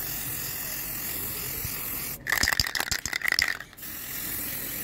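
Aerosol spray paint can being shaken, its mixing ball rattling sharply inside the metal can for about a second and a half from about two seconds in, over a steady hiss.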